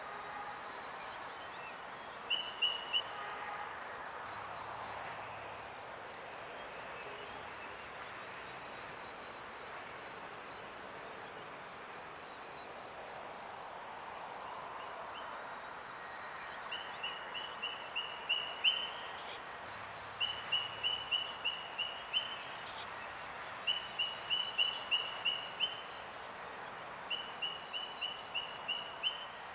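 Steady, high-pitched, rapidly pulsing stridulation of insects such as crickets. A shorter, slightly lower chirping trill cuts in once near the start, then repeats about every three and a half seconds through the second half.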